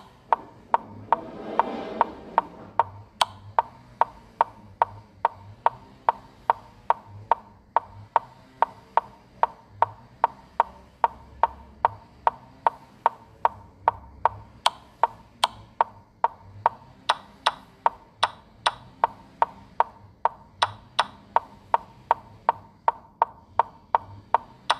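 Chess app piece-move sound effects: a rapid, even series of short clicks, about two to three a second, as the moves of a game are played back one after another. About two seconds in, a brief rushing noise swells and fades over the clicks.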